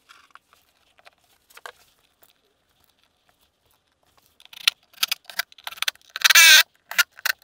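Faint clicks of screws and the driver being handled. From about four and a half seconds in comes a run of sharp clicks, then a brief loud burst of a Makita cordless driver spinning a screw through an aluminium seat-pedestal base into the boat floor, followed by more clicks.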